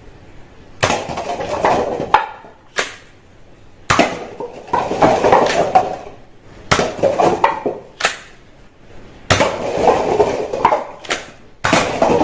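A toy gun fired about six times, each shot a sudden noisy burst that trails off over a second or so.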